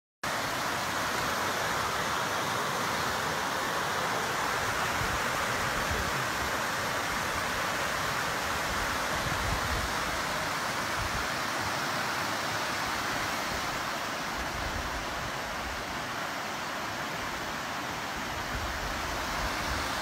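Mountain river rushing over rocks in white-water rapids, a steady unbroken hiss of water.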